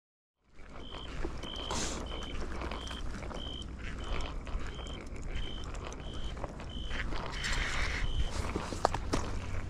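About a dozen short, evenly spaced electronic beeps at one pitch, roughly one and a half a second, over a low steady rumble, with a few sharp clicks near the end.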